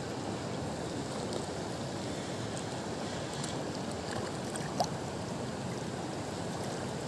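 Steady rush of river water flowing over a rocky riffle, with one brief rising chirp a little under five seconds in.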